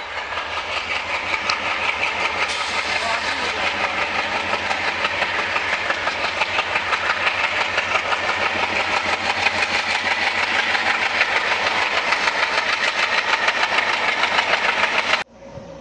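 ALCO-design diesel locomotive hauling a passenger train, its engine working hard with an even pulsing beat and growing slowly louder as it approaches. The sound cuts off suddenly near the end.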